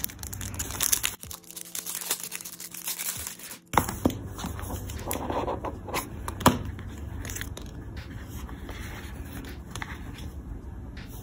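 Handling noise from opening a presentation box and lifting a glass dip pen out of its foam insert: irregular scraping and rustling with a few sharp clicks, the loudest about six and a half seconds in.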